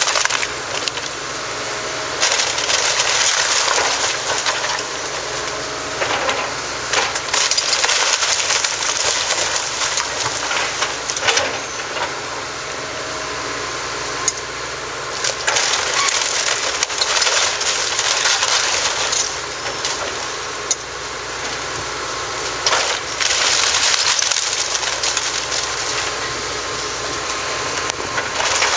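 Hitachi Zaxis 200 excavator demolishing an old timber log-cabin house: wood cracking, splintering and crashing in repeated bouts of a few seconds each, over the excavator's diesel engine.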